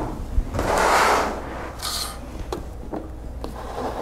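Handling noise from plastic humidifier parts on a wooden desk: a rubbing slide about a second in, then a few light clicks and knocks as the control top is lifted off the bead-filled water tank.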